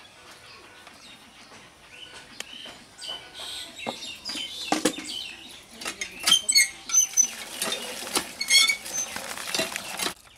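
Cast-iron hand pump being worked: the handle squeaks and clanks with each stroke while water splashes into a steel bowl, loudest from about six seconds in.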